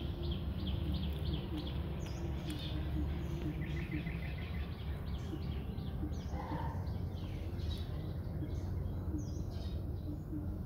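Small birds chirping and trilling on and off over a steady low background rumble.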